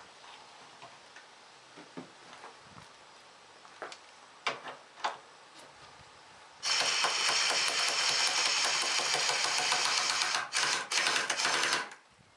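A few light clicks and taps, then about six and a half seconds in a compressed-air blow gun lets out a loud, steady hiss for about five seconds, cut twice briefly, blowing dirt out of a mower part.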